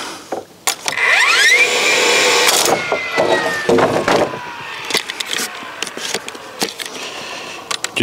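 Battery-powered DeWalt cordless nailer tacking a board with a temporary holding nail: its motor spins up with a rising whine, it fires with sharp clicks, and the whine falls away slowly. A second spin-up starts near the end.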